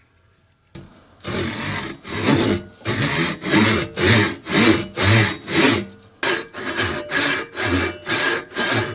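Hand saw cutting a kerf lengthwise down the center of a turned wooden handle, in steady back-and-forth strokes, about two a second. There is a short pause about six seconds in before the sawing resumes.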